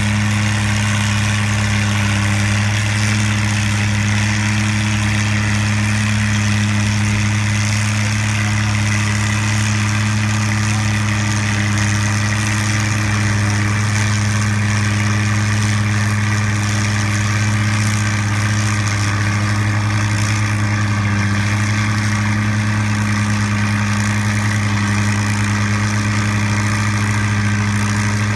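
Antique farm tractor engine idling steadily, a deep even hum that holds the same pitch and loudness throughout.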